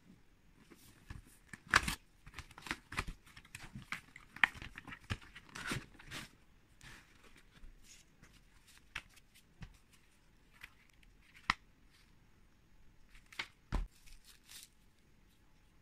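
Packaging being handled during unboxing: cardboard box, paper leaflets and a plastic sleeve rustling, crinkling and knocking in irregular bursts. The bursts come thick in the first half and thin out later, with a few sharper knocks among them.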